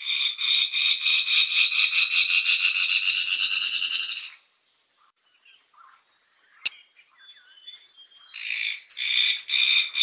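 Fire-tufted barbet calling with a fast, pulsing trill for about four seconds that cuts off sharply. After a second's silence come scattered short chirps and notes, and the pulsing trill starts again near the end.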